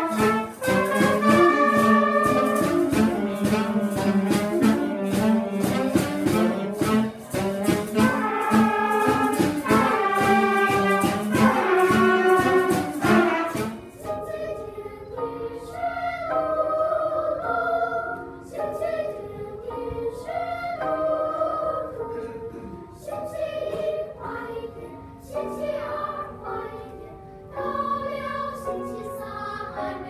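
A children's flute ensemble playing a tune together; about fourteen seconds in it gives way to a quieter children's choir singing.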